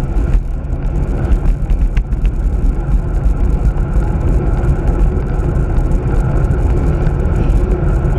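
Steady wind buffeting on the microphone, mixed with tyre noise on asphalt, from a camera on a road bike riding along.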